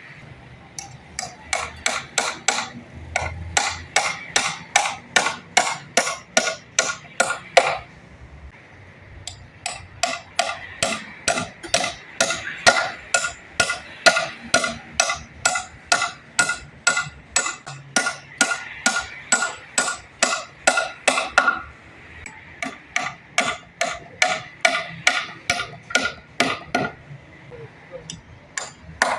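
Hammer blows in steady runs of about two or three strikes a second, each with a short ringing tone, broken by brief pauses.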